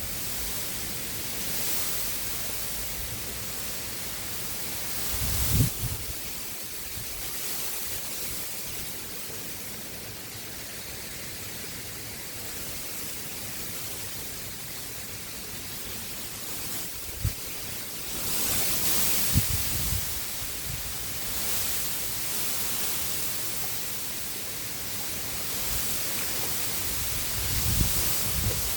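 Strong gusty wind on the microphone over a steady hiss, with low rumbling buffets about five seconds in, around twenty seconds and near the end.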